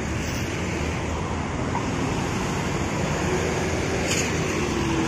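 Intercity coach driving off with its diesel engine running, mixed with steady road traffic noise.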